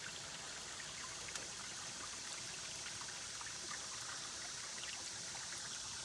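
Shallow creek water trickling and running steadily.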